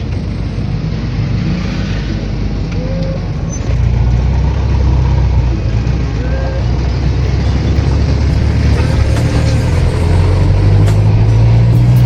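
1993 Daihatsu Taft 4x4 driving, its engine drone steady at first, getting louder about four seconds in and climbing slightly in pitch near the end as it pulls harder.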